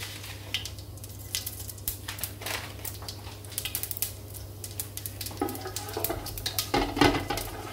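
Cumin and mustard seeds sizzling in hot oil in an aluminium pot, with many small scattered crackles. From about five and a half seconds a wooden spatula stirs and scrapes the pot. A steady low hum runs underneath.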